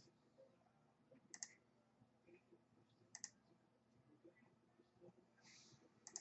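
Faint computer mouse clicks in near silence: a quick double click about a second and a half in, and another about three seconds in. A soft rustle near the end.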